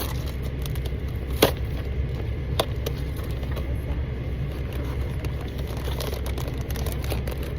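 Cardboard packaging of a Skull Panda blind box being handled and pried at: a sharp click about a second and a half in, another a second later, then light crackling, all over a steady low rumble.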